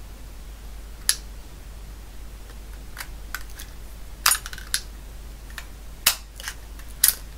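Teletype ASR33 paper tape punch being worked by hand: a string of irregular, sharp metallic clicks and snaps as the punch lever is pushed through and back and the pins punch a row of holes in the paper tape, the loudest about four seconds in.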